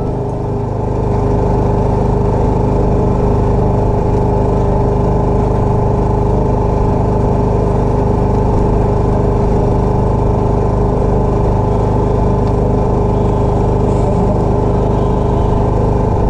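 Small engine running steadily aboard a wooden fishing boat: an even, unbroken drone.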